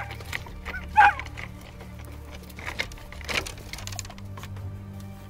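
Hunting dog giving one short, high yelp about a second in, over a steady low background drone.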